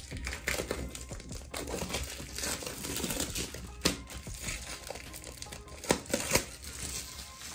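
Clear plastic wrapping crinkling as it is peeled and pulled off a small album package, with a few sharp, louder crackles in the second half.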